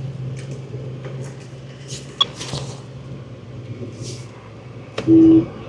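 A 4x4's engine running steadily as a low hum, with scattered clicks and knocks and a short, loud steady beep about five seconds in.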